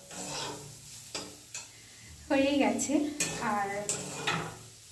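Thin-cut potatoes frying in oil in a pan, sizzling as they are stirred and scraped with a spatula. A voice sounds over the frying in the second half.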